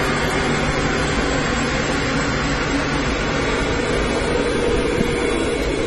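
Steady machinery running, an even mechanical noise with a constant low hum and no change in pace.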